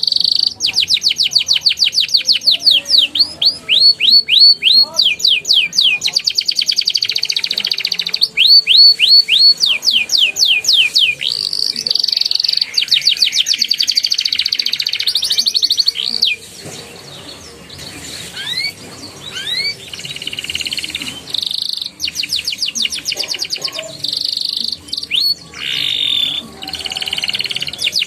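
Young domestic canary singing in long rolling trills: runs of rapid, repeated high chirps that change speed from phrase to phrase, with a softer, sparser stretch about two-thirds of the way through.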